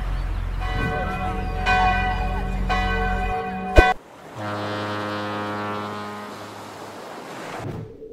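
Church bells ringing over a low rumble, three strokes about a second apart, then a sharp crack. After it a deep foghorn sounds one long blast that slowly fades.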